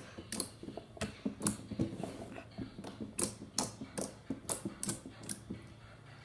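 Jiggly slime being squeezed and worked by hand, giving off sharp irregular clicks and pops, about two or three a second: the clicky sound of a jiggly slime.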